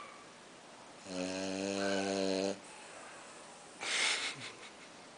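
French bulldog snoring in its sleep: one steady-pitched, buzzing snore lasting about a second and a half, starting about a second in, then a short hissing breath about four seconds in.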